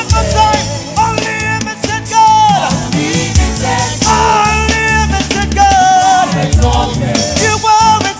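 Loud, continuous gospel praise music from a band with drum kit and bass, and melodic lines over the top.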